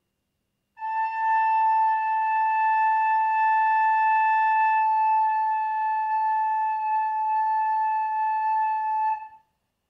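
Soprano recorder playing the note A as one long, steady held tone, fingered with left-hand thumb, index and middle, starting about a second in and stopping shortly before the end.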